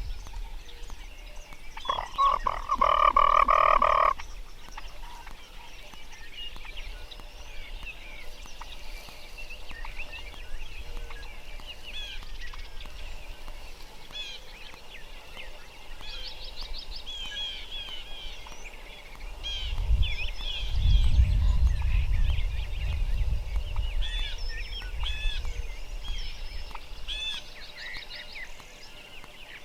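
Outdoor spring dawn chorus: a loud, rattling animal call lasting about two seconds shortly after the start, then many small birds chirping, with a low rumble about twenty seconds in.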